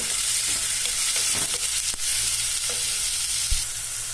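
Sliced onions sizzling in hot sunflower oil in a saucepan as they are stirred and sautéed, with a few sharp knocks from the stirring against the pan. The sizzle eases slightly near the end.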